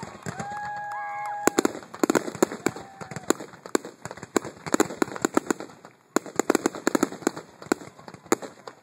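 Aerial fireworks bursting: a dense, irregular crackle of many sharp pops and bangs from crackling shells, easing briefly about six seconds in. Near the start, a steady high tone is held for about a second over the crackle.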